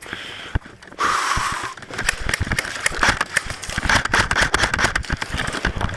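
Running on dry dirt: quick, irregular footfalls with the airsoft gun and gear rattling. The clatter picks up about a second in.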